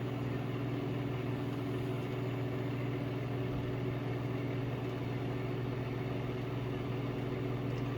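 Microwave oven running with a steady electrical hum and fan noise. It is powered from an Inergy Kodiak battery power station's inverter under a heavy load of about 1,300 watts.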